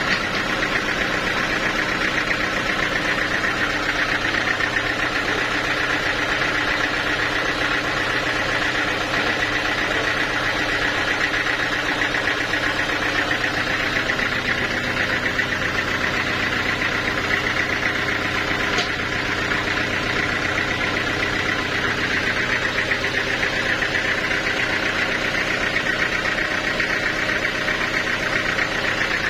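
Sawmill machinery running steadily: an engine drone with a higher whine on top, holding constant without revving up or down.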